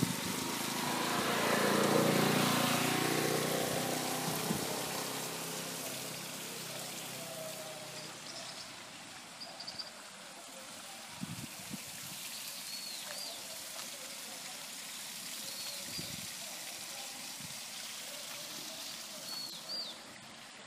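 Outdoor ambience: the steady splash of a small artificial waterfall, a vehicle passing about two seconds in, and a few short bird chirps in the second half.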